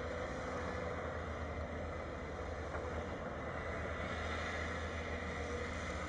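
Caterpillar 325 LN long-reach excavator's diesel engine running steadily as the boom works, a constant low drone without breaks.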